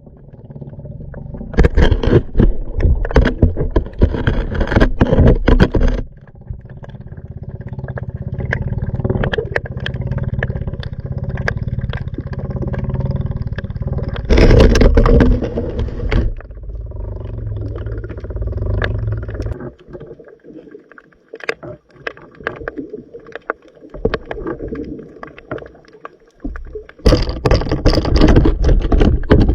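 Sound from a camera held underwater: muffled rushing, knocking and crackling of water against the housing in three loud spells, over a steady low rumble.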